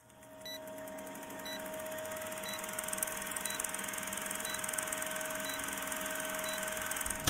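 Vintage film-leader countdown sound effect: a steady hum under film crackle and hiss, with a short, faint high beep once a second, seven times, as the numbers tick down. It fades in at the start.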